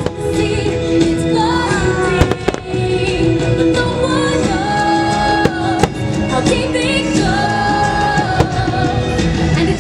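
Fireworks show soundtrack music with singing, played loud over a sound system, with fireworks bursting over it: a few sharp bangs, several close together about two seconds in, more near the middle and one near the end.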